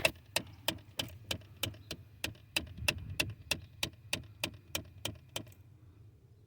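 HVAC blend door actuator of a 2017 Ford Expedition ticking steadily, about three clicks a second, then stopping a little over five seconds in. The ticking, set off by opening a door, is the sign of the failing actuator.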